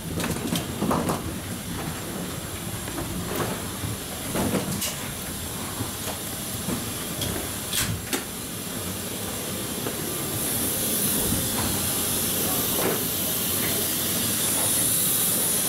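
Steady rushing air-conditioning hiss in a jet bridge, growing louder and hissier about ten seconds in near the aircraft door. Scattered knocks and clicks come from footsteps and a rolling suitcase.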